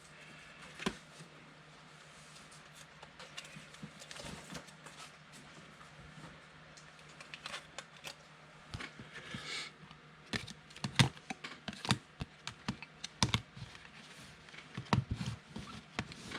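Trading cards being gathered and handled for a recap: irregular light clicks, taps and slides, sparse at first and coming thick and fast in the second half, over a faint steady low hum.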